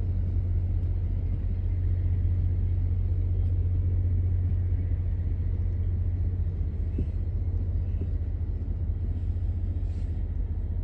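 VIA Rail passenger cars rolling past close by: a steady low rumble of wheels on rail that eases slightly near the end as the last car goes by.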